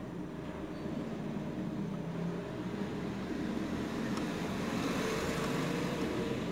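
Car stereo's CD mechanism whirring as the disc spins while the forward/seek button is pressed, growing a little louder and brighter about four seconds in.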